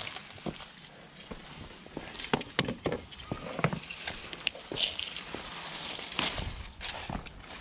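Footsteps on dirt and dry leaves, with irregular rustling and sharp clicks as cut tree branches are handled and carried.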